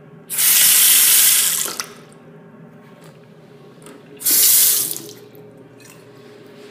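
Water from a two-handle bathroom sink faucet running into the basin in two short runs: first for about a second and a half, then more briefly for under a second.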